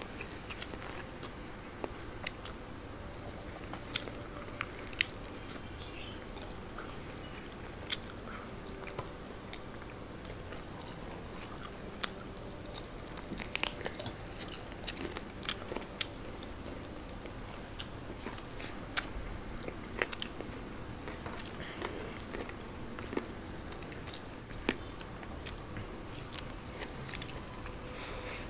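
Close-miked eating of fried chicken by two people: biting and chewing with scattered sharp crunches and clicks.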